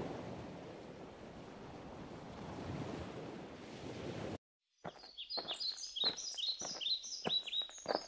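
A steady rushing wash of water and wind that cuts off suddenly about four seconds in. After a brief silence, a quick run of high, falling bird chirps starts up, with short sharp knocks among them.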